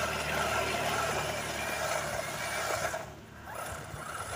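Radio-controlled toy monster truck driving over dirt, its motor and gears whining steadily, briefly dropping off about three seconds in before picking up again.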